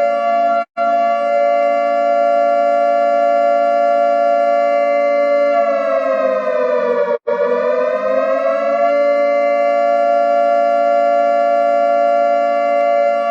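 Emergency alert system alarm tone: several steady tones held together that cut out for an instant about a second in. Around six seconds in the pitch slides down, breaks off briefly, then slides back up to the held tones by about nine seconds.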